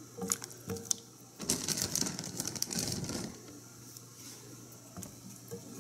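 Carrot sticks being dropped by hand into a pot of chicken and broth: two soft knocks, then about two seconds of fast small clicks and clatter, then a few scattered ticks.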